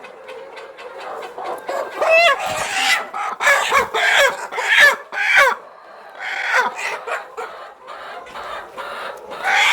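A flock of 16-week-old layer pullets squawking and clucking, with a run of loud calls starting about two seconds in and a few more near the end.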